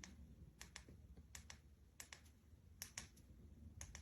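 Faint clicks of buttons pressed on a small LED-strip remote, switching the lights through their modes: five quick double clicks spread evenly over the few seconds.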